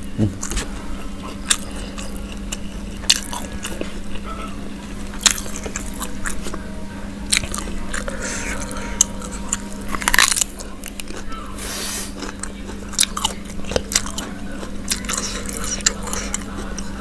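A person eating fried free-range chicken close to the microphone: irregular crisp bites and crunches between chewing. A steady low hum runs underneath.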